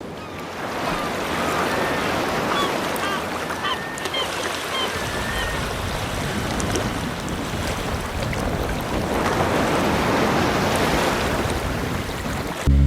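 Sea surf washing onto the shore, swelling and ebbing in slow waves, with a few faint short chirps in the first few seconds.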